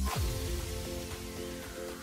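Background music. The deep bass beat cuts out right at the start with a quick falling swoop, and a lighter melody carries on.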